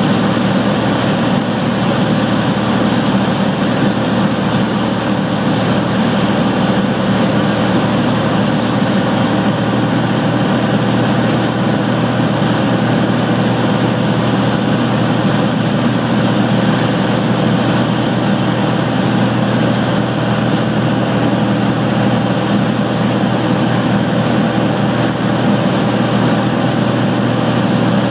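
An airplane's engine and propeller running steadily at approach power, a constant drone heard from inside the cabin.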